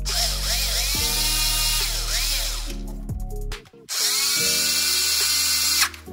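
Power driver running bolts in, in two runs: about three and a half seconds, a short pause, then about two seconds more, its whine rising and falling with motor speed. Background music plays underneath.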